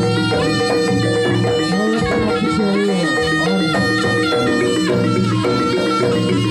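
Live jaranan ensemble music: a reedy double-reed trumpet (slompret) plays a sustained, bending melody over drums.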